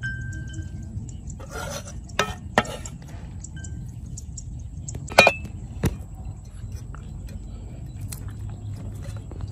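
A cleaver blade scraping and clinking against a ceramic bowl, with a handful of sharp clicks and knocks over a steady low rumble. The loudest clink comes about halfway through and rings briefly.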